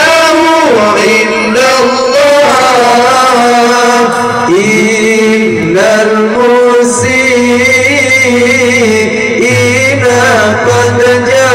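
A zikir group singing a slow melismatic devotional chant, its long held notes bending in pitch. A low steady note comes in about seven seconds in.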